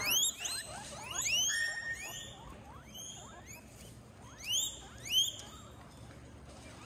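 Guinea pigs wheeking: a run of short, high, rising squeals in clusters, loudest near the start and twice about four and five seconds in.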